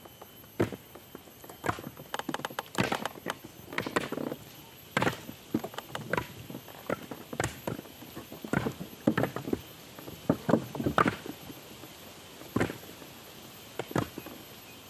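Irregular knocks, taps and clatter of things being handled, some in quick clusters, with soft rustling between them.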